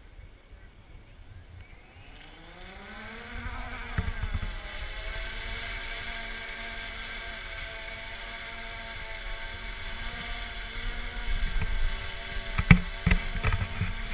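Quadcopter drone's electric motors spinning up: a whine that climbs in pitch over about two seconds, then holds steady as the drone hovers. A few sharp knocks come near the end.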